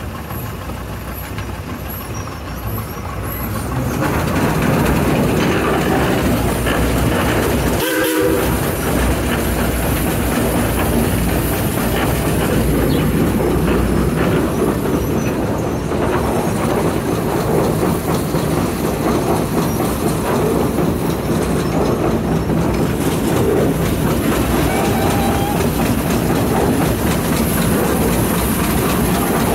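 Rumely 40-140 steam traction engine working under load while pulling a sled, heard from its cab: a dense, steady mechanical clatter of engine and gearing that grows louder about four seconds in as the pull gets going.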